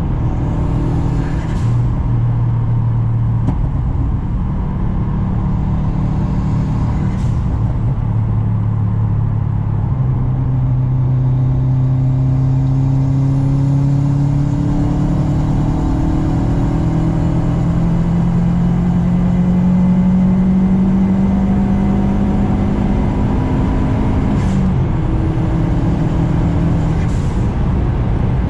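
Turbocharged flat-four engine of a modified Subaru Impreza WRX running under way, its pitch climbing slowly through a long steady pull. Near 7 s and again around 24–25 s the pitch drops with a short hiss, typical of gear changes with the blow-off valve venting.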